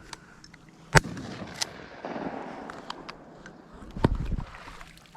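Two shotgun blasts, the first about a second in and the second about three seconds later. The first is the loudest.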